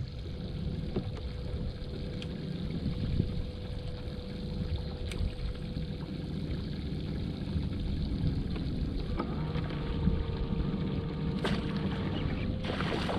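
Wind rumbling on the microphone over a steady hum, on the deck of a bass boat. Near the end come a couple of sharp knocks as the rod is swept back to set the hook.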